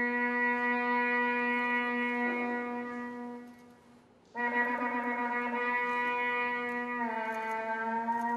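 Ram's horn (shofar) sounding two long blasts. The first held note fades out about three and a half seconds in; the second starts just after four seconds and dips slightly in pitch near the end.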